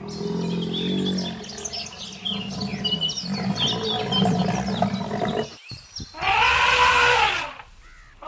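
A large animal's low pulsing growl-like call for about five seconds, with small birds chirping over it, then a loud drawn-out call that rises and falls in pitch about six seconds in.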